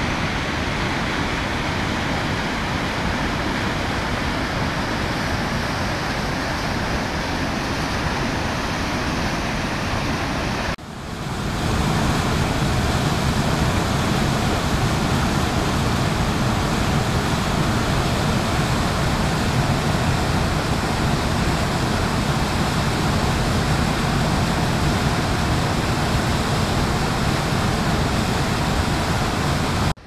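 Kivach waterfall: white-water rapids rushing over dark rock in a steady, even rush. About eleven seconds in the sound breaks off for an instant and comes back louder, with more deep rumble.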